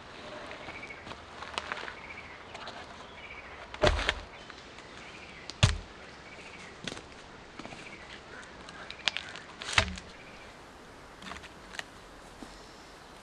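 Heavy wooden thuds of sawn log sections being set down on the ground and onto other logs: three loud ones a few seconds apart, with lighter knocks in between. A bird sings short repeated chirps in the background.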